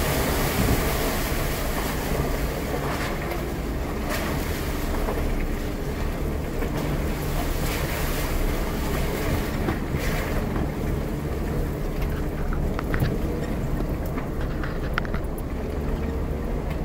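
Jeep Wrangler driving slowly over a rough, wet tunnel floor: a steady engine hum and tyre noise, with air noise on the outside-mounted microphone and a few short knocks and splashes.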